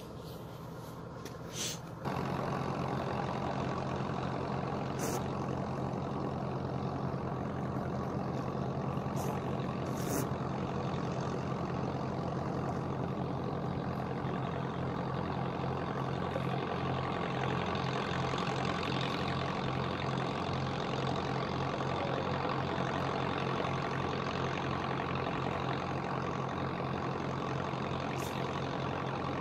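An engine running steadily, a low even hum with a fast pulse that starts suddenly about two seconds in.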